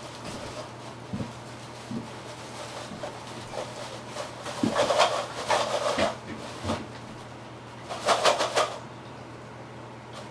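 Thin plastic grocery bag rustling and crinkling as it is handled, in two spells, the second about eight seconds in. A few soft thumps come before the rustling, over a steady low hum.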